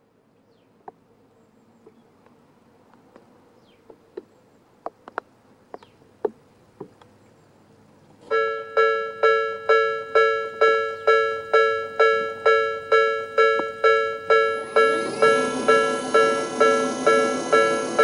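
Japanese level-crossing electronic alarm of the Tobu "sound B" type starts about eight seconds in, a loud bell-like tone struck about twice a second, after a few faint scattered ticks. From about fifteen seconds in, a rising whir joins it as the Nippon Signal electric barriers lower.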